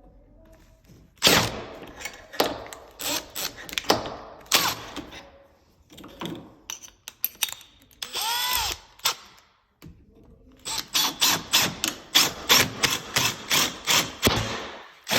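Power drill with a 1-inch bit boring into the edge of a door, run in bursts. Around the middle the motor whine rises and falls, and near the end it runs in a quick string of short pulses.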